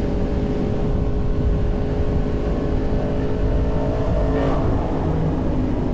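Yamaha MT-10's crossplane inline-four running through a Racefit aftermarket exhaust inside a road tunnel, a steady loud engine note whose pitch shifts slightly about four and a half seconds in.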